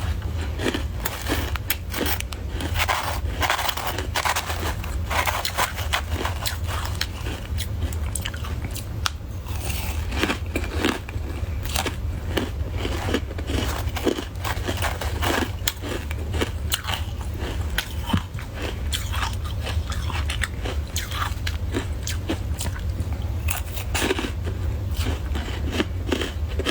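A person biting and chewing soft white ice close to the microphone: dense, irregular crunches over a steady low hum.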